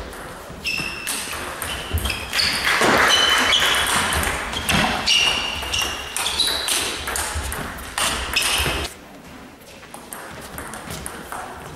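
Table tennis rally: the ball clicking and pinging sharply off the bats and the table in an irregular quick back-and-forth, with a loud swell of broad noise about three seconds in.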